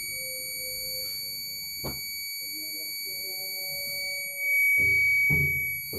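Electronic security-alarm hooter sounding one continuous high-pitched tone. It keeps going because the keypad command to switch it off has not taken effect. There is a click about two seconds in, and a louder low rumble for just under a second about four and a half seconds in.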